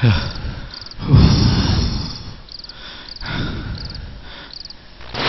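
Crickets chirping in short, evenly repeated high trills. Over them come a few louder low, noisy swells, the loudest about a second in.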